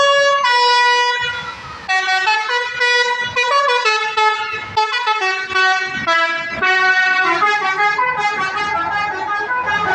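Bus 'telolet' musical air horn playing a quick tune, its notes jumping from pitch to pitch several times a second.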